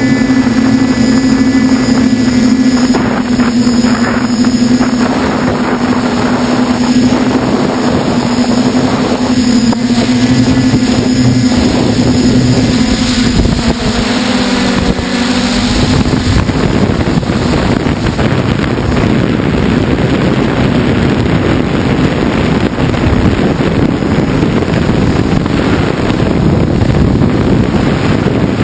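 Steady motor hum of a radio-controlled camera aircraft, heard from on board, with wind buffeting the microphone. A little past halfway the pitch dips and the hum gives way to rushing wind noise.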